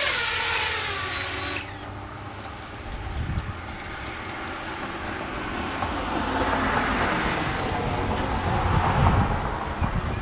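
DJI FPV drone's motors and propellers spinning down after landing: the high whine falls in pitch and cuts off abruptly about a second and a half in, leaving only a low background rumble.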